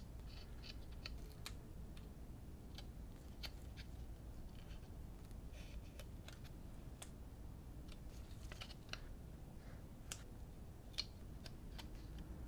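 Small plastic model-kit parts being handled and fitted together: scattered light clicks and ticks of plastic on plastic, a few of them sharper, over a low room hum.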